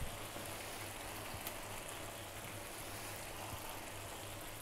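Tomato sauce bubbling and spitting softly in a frying pan, a steady fine crackle, with a faint click or two as fish steaks are set down in it. A low steady hum runs underneath.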